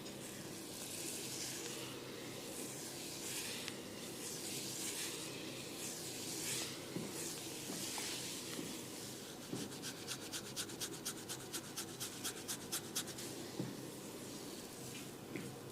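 Fingers rubbing and scratching through hair and over the scalp in a series of swishes. About two-thirds of the way in, this gives way to a quick run of evenly spaced taps, about five a second, for a few seconds.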